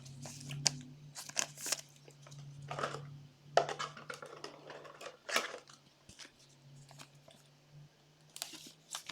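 Trading cards and their packaging being handled: scattered rustling, crinkling and light ticks as cards are slid and set down, over a steady low hum.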